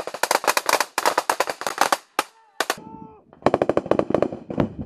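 Rapid bursts of automatic gunfire, the shots coming several a second. A lull of about a second falls near the middle before the firing starts again.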